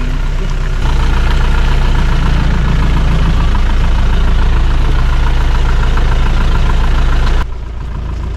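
Land Rover engine running at a steady low speed while the vehicle crawls along an off-road track. It gets louder about a second in and drops off suddenly near the end.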